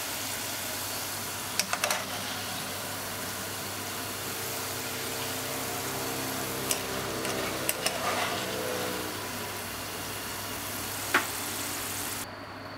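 Hot oil sizzling steadily as french fries deep-fry in a pot, with a few light metallic clicks from a wire mesh strainer knocking against the plate as fried fries are tipped out. The hiss drops away near the end.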